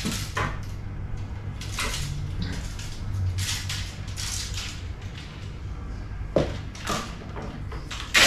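Several slow-jig fishing rods handled and bundled together: irregular rustling and light clacks of the rod blanks and reel seats against each other, with sharper knocks about six and eight seconds in.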